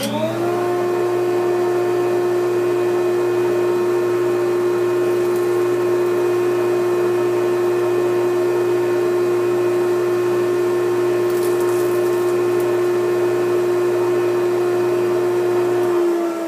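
Dust-collection vacuum drawing air through a CNC router's brush dust boot and hose. It spins up with a rising whine, runs steadily, and winds down with a falling pitch near the end when switched off.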